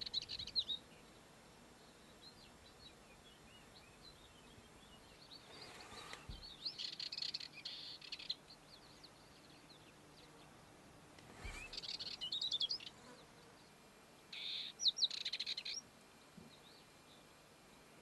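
Dartford warbler singing: short, rapid, high warbling phrases repeated every few seconds, with softer twittering between them.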